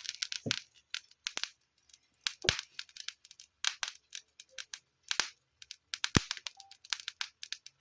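Fire crackling, with irregular sharp snaps and pops; the sharpest pop comes about six seconds in.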